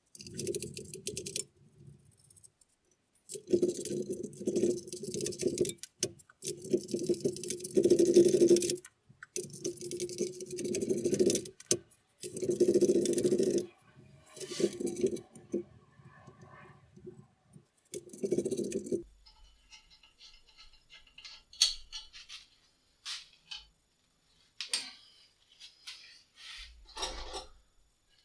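A small power tool runs in repeated bursts of a second or two, undoing nuts off studs. In the last third, loose metal parts clink and click.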